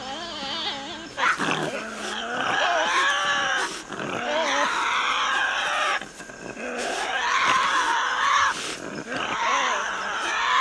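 Tasmanian devils screeching and growling at each other in harsh, wavering calls: several long bouts with short gaps, starting about a second in. It is the noisy standoff devils make when contesting a carcass.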